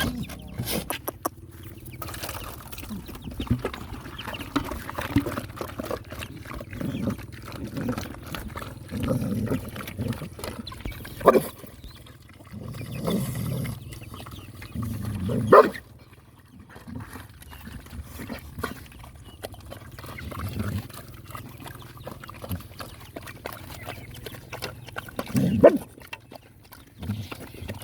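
Hungry dogs eating and scrapping over food: irregular low animal noises throughout, with three short, loud, sharp sounds spread through it.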